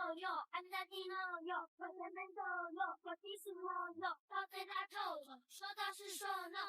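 A song laid over the video: a high, childlike voice singing in short phrases.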